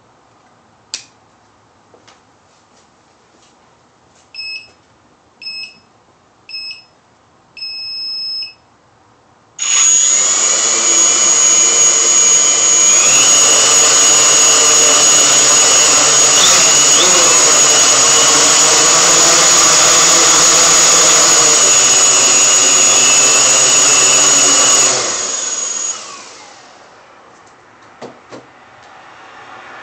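A few short electronic beeps from the multirotor drone, then its brushless motors and propellers spin up and run loud and steady for about fifteen seconds with a high whine, rising a little in pitch a few seconds in, before spinning down.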